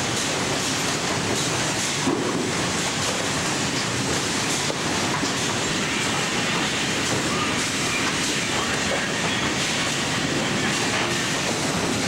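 Continuous loud clattering din of sawmill machinery at work: chain conveyors and rollers rattling as they carry boards, with saws running.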